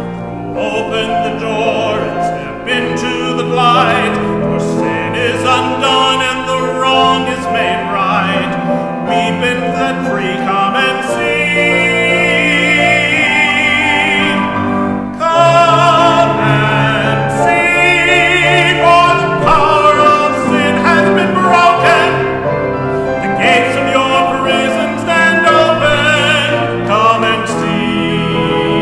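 Church solo sung in a trained, operatic style with heavy vibrato over instrumental accompaniment.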